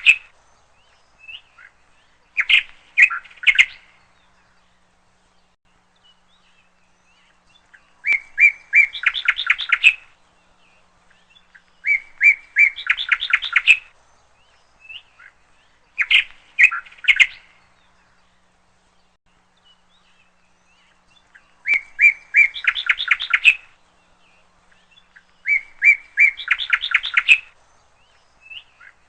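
A bird singing in repeated trilled phrases, each a quick run of chirps lasting a second or two, coming every few seconds with quiet between.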